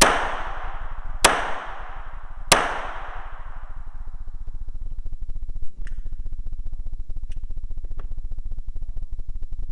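Three Glock 17 9 mm pistol shots, about a second and a quarter apart, each followed by a long echo that dies away in the hall. A few faint clicks follow later.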